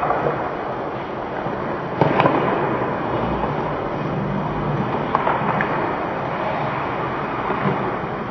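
Ice hockey rink ambience: a steady hiss of play on the ice, with sharp clacks of sticks and puck, the loudest about two seconds in and a few more later.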